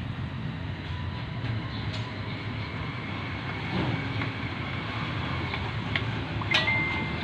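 Blue PVC pipe fittings being handled, with light clicks that include a sharp one near the end, over a steady low rumble.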